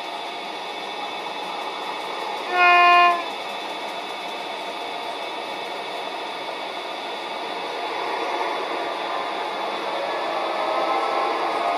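A ROCO single-car model railbus's digital sound decoder playing a diesel railcar engine sound through its small speaker, with one short horn blast about two and a half seconds in. Near the end the engine sound grows louder and rises in pitch.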